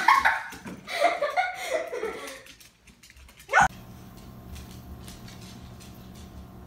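A girl laughing and squealing excitedly for about two and a half seconds. A short sharp sound follows about three and a half seconds in, then only a steady low hum.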